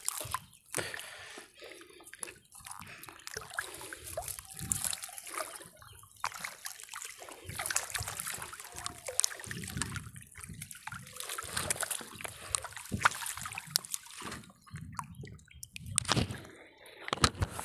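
Water dripping, trickling and splashing irregularly as a wet monofilament fishing net is hauled hand over hand out of a lake, with caught fish hanging in the mesh at the surface.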